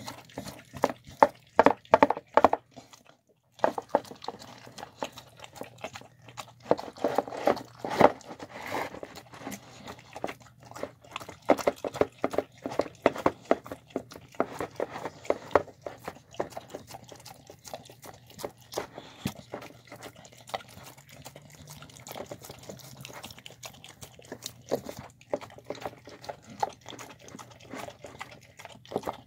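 A dog eating a soft, wet meal of chicken, cabbage, spinach and rice from a bowl: a dense, irregular run of wet chewing, smacking and licking. The sound drops out for about half a second around three seconds in.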